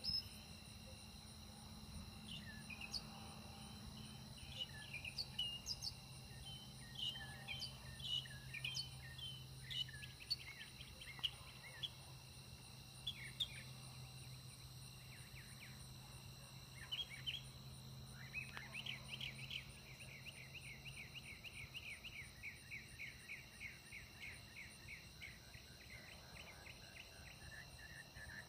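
Birds chirping and calling in short notes over a steady high drone of crickets and other insects. In the last third, a fast series of repeated chirps runs on for several seconds. A faint low steady hum sits underneath through the middle.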